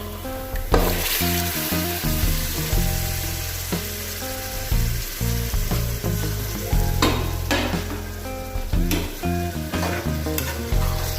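Boiled mutton pieces sizzling in hot oil with fried onion and ginger-garlic paste in a kadai. The sizzle swells about a second in as the mutton goes into the pan, and the spoon knocks and scrapes against the pan several times while stirring.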